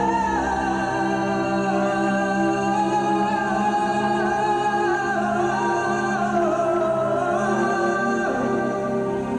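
Music for the stage: a voice sings a slow, wavering melody over a steady held drone.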